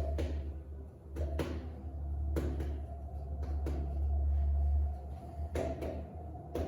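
Bamboo massage sticks knocking with a hollow, woody sound, often in quick pairs about once a second, over a low rubbing rumble.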